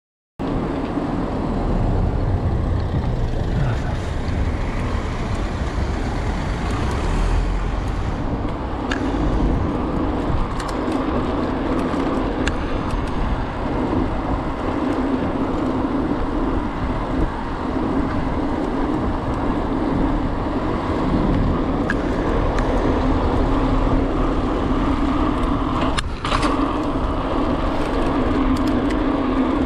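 Steady road noise of a bicycle ride on a city street, cutting in abruptly just after the start: tyres rolling on asphalt and wind rumble on the camera's microphone, with car traffic around. A few short sharp clicks or knocks stand out along the way.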